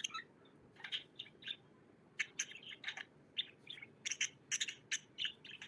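Pet lovebird chirping: a string of short, high chirps that come closer together in the second half.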